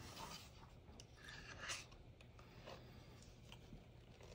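Near silence with a few faint, soft scrapes and rustles from hands working croissant dough and a scoop taking cream cheese filling.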